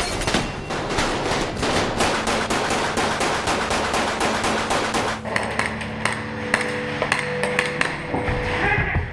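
Rapid airsoft gunfire: a dense string of sharp shots and BB impacts for about five seconds, thinning to scattered shots after that.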